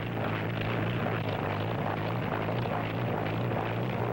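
Early helicopter's engine and rotor running steadily: a continuous low drone with a rapid flutter.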